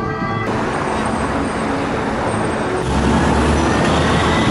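Busy city road traffic: a steady mix of car and scooter engines and tyre noise. A deeper engine rumble comes in about three seconds in and the traffic gets louder.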